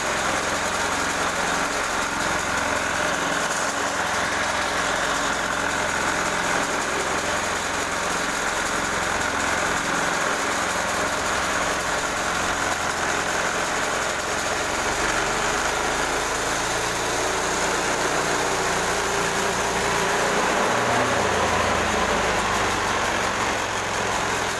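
Engine of a portable bandsaw sawmill running steadily, its note shifting a little around the middle and again near the end.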